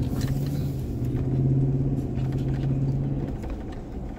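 Vehicle engine heard from inside the cabin while driving, a steady low hum under light throttle. Its pitch steps up slightly at the start and the hum falls away a little past three seconds in as the throttle comes off.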